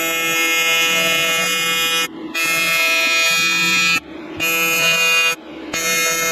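AC TIG welder's arc on aluminum, a loud steady buzz that is struck and stopped repeatedly: four runs of one to two seconds with short breaks, as filler rod is stitched into a crack in a boat transom.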